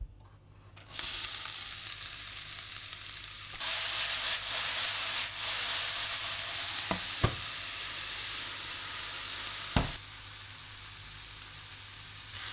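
Diced onions sizzling in hot ghee, the sizzle starting suddenly about a second in as they go into the pan. They are stirred, with three sharp knocks of the utensil against the pan in the second half.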